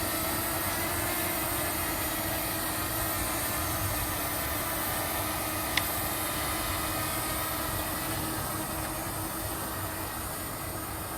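DJI Mini 2 SE quadcopter's propellers giving a steady hum, easing off slightly near the end as the drone moves away. A single short click sounds about six seconds in.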